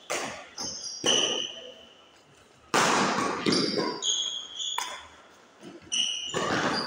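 Badminton rally: rackets striking the shuttlecock about four times, each hit sharp and echoing in the hall. Short high squeaks of shoes on the court floor come between the hits.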